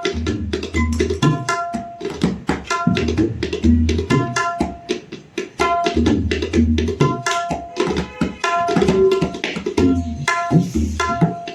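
A tabla pair played in a fast, continuous sound-check pattern: crisp, ringing strokes on the dayan, tuned to F sharp, over deep bass strokes on the bayan that bend up and down in pitch.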